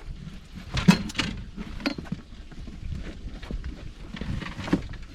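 Scattered knocks and thumps in a fishing boat as a big catfish that has just been lifted aboard is handled. The sharpest knock comes about a second in, with others shortly after and near the end, over a low steady rumble.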